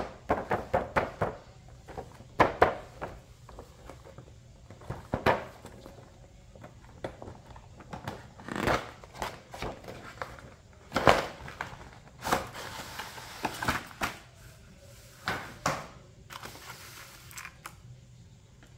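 Hands handling a doll's cardboard box with a clear plastic window: a quick run of taps at first, then scattered knocks and longer rustling, crinkling stretches of the plastic packaging as the box is opened.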